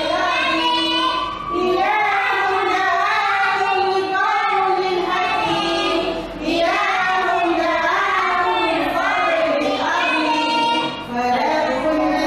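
A child singing a melody in long phrases, pausing briefly three times.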